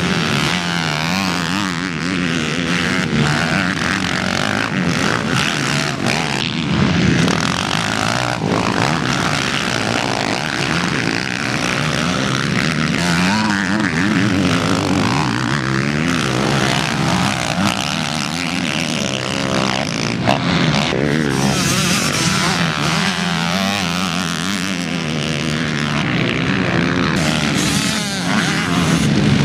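Several motocross dirt bikes' engines revving hard, their pitch rising and falling over and over as the riders open and close the throttle through the corners.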